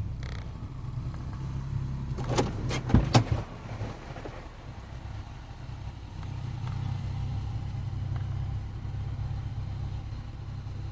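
A vehicle engine running steadily at idle, with a short burst of knocks and clatter about two and a half to three and a half seconds in.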